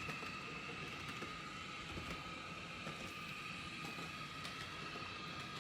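Motor of an HO-scale Piko Class 442 EMU model running with a steady whine, with a low rumble of its wheels on the track, as it climbs an incline at a steady speed with no hesitation.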